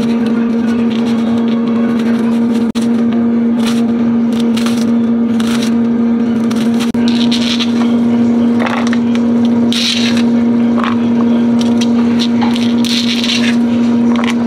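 Loud, steady electrical hum, with crackles and scrapes scattered over it.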